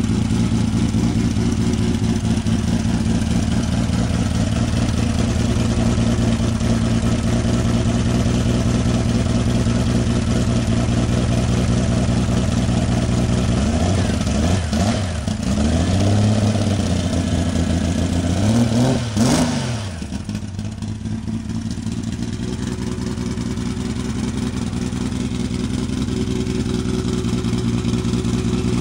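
Turbocharged BMW S38 straight-six in an E30 idling steadily. Its revs swing up and down briefly about halfway through and again a few seconds later, then the idle settles slightly quieter.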